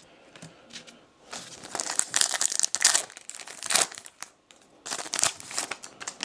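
Foil trading-card pack wrapper crinkling and tearing as it is opened by hand, in a quick run of crackly bursts starting about a second in.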